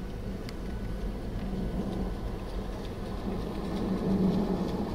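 A car stuck in deep snow, its engine running under throttle as the front wheel spins and churns the snow. The engine note swells about four seconds in.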